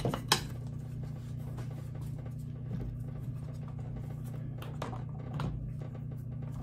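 Small hand clamps being handled and tightened on leather over a wooden form: one sharp click about a third of a second in, then a few faint clicks and taps, over a steady low hum.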